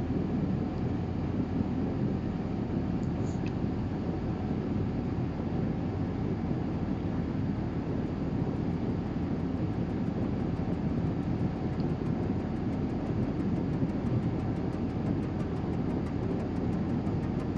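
A steady low rumbling background noise with no clear rhythm or tone.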